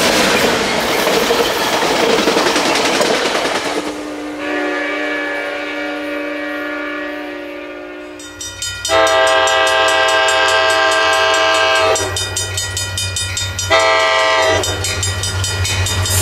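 A bi-level Sounder commuter train passing close by, its wheels and cars rushing on the rails, then a train horn held for a few seconds as it fades. After a cut, an Altamont Commuter Express diesel locomotive approaches with a low engine rumble and sounds its multi-tone horn: a long blast, a weaker stretch, then a short blast about two-thirds of the way through that runs into another held blast.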